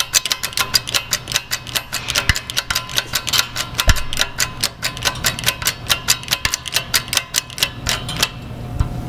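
Hydraulic shop press with a bottle jack being worked by hand to press a seal into a pump housing: a fast, even run of sharp clicks, about six a second, that stops about a second before the end.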